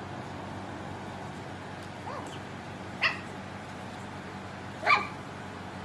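Pug puppy giving two short, sharp, high barks about two seconds apart, the second the louder, after a faint whine.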